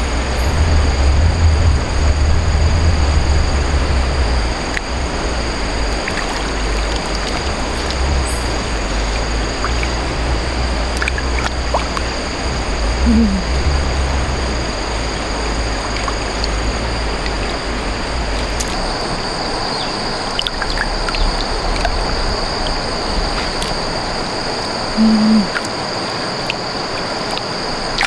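Stream water running, a steady rushing hiss, with a low rumble in the first few seconds and a steady high-pitched tone above it.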